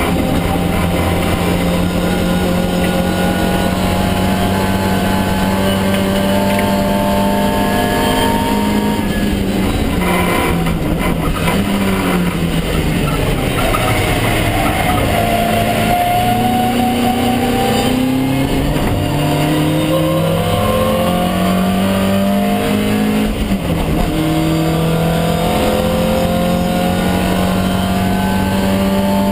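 Lotus Twin Cam 1600 four-cylinder engine of a Mk1 Ford Escort race car, heard from inside the stripped cabin at racing speed. The engine holds high revs, drops sharply about ten seconds in, then climbs again, its revs rising and stepping down with each gear change.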